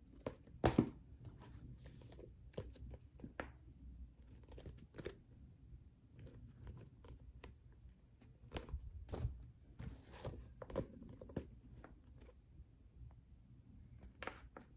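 Paperback manga volumes being handled and stacked on a desk: irregular taps, knocks and rustles of the covers, the loudest a double knock about a second in.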